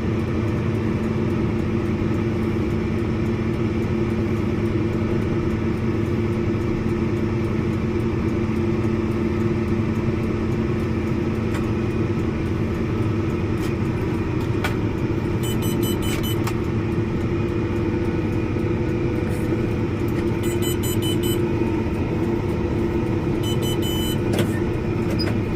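Tractor engine running steadily, a constant drone at a fixed pitch. Three short spells of high-pitched beeping come in over it in the second half.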